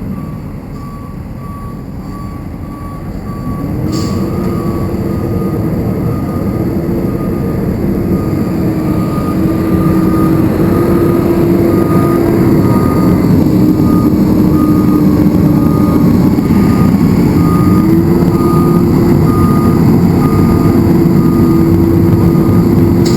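Heavy truck-mounted ditch-cleaning equipment running loud, its engine dipping and then revving back up a few seconds in and growing louder. A backup alarm beeps steadily about twice a second, fading for a while and then returning strongly.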